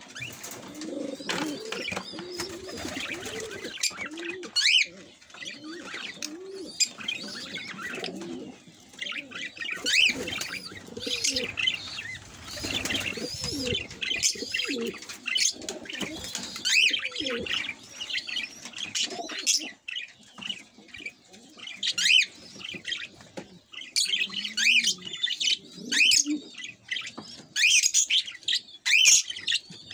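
Budgerigars, a cockatiel and a lovebird kept together in a cage, chattering and chirping continually in sharp high calls over a lower warbling, with short flutters and clicks in between.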